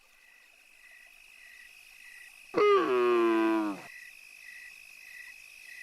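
Night ambience sound effect: a faint, steady, high insect-like chirping pulsing a couple of times a second, with one loud hoot-like call that falls in pitch, starting a little over two seconds in and lasting about a second.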